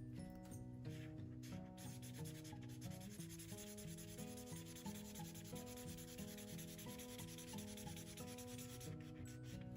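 Soft background music with a stepping melody, over a scratchy rubbing hiss of colouring on paper that swells in the middle and fades near the end.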